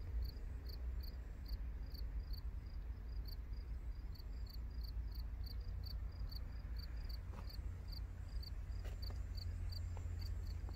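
Insect chirping steadily, about two or three short high chirps a second, over a steady low rumble; a few faint knocks near the end.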